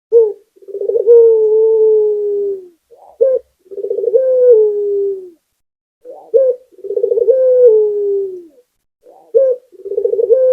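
Ringneck (Barbary) dove cooing: a short note followed by a long rolling coo that slides down in pitch at the end, repeated about every three seconds, four times.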